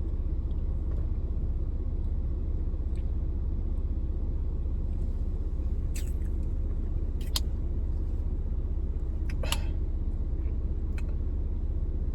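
Steady low rumble of a car's running engine heard from inside the cabin, with a few short clicks and knocks about halfway through.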